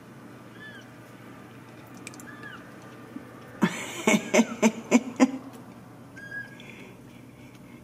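Young Ragdoll kittens mewing: a few short, faint, thin mews rising and falling in pitch. In the middle comes a quick run of about six loud, sharp sounds.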